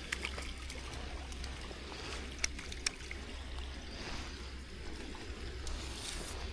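Steady rush of running water, with a few sharp clicks near the start and around two and a half to three seconds in.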